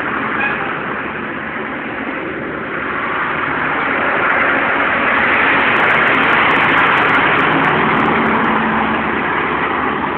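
A large truck passing close by on the road, its engine and tyre noise swelling to its loudest about halfway through and then easing off slightly.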